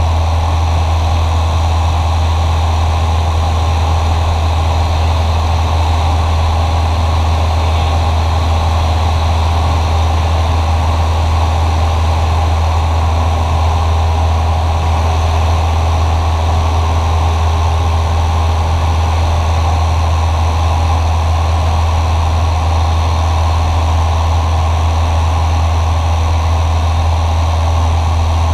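Cessna 172SP's four-cylinder Lycoming IO-360 engine and propeller droning steadily at cruise power, heard inside the cabin. The deep hum holds a constant pitch and level throughout.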